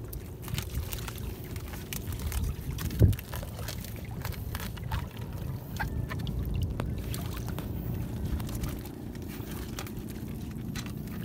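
A gillnet being hauled in over the side of a small fishing boat, with water sloshing and dripping around the hull and scattered small clicks from the net and gear. One loud knock about three seconds in.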